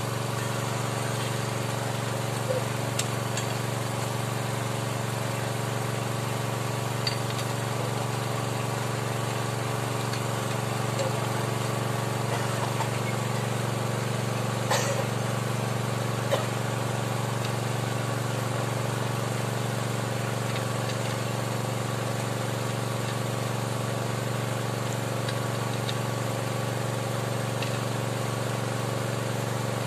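Small engine running steadily at one speed, driving the water pump that feeds the drill pipe during hand-drilled borehole work. A few brief clinks and knocks sound over it, loudest about halfway through.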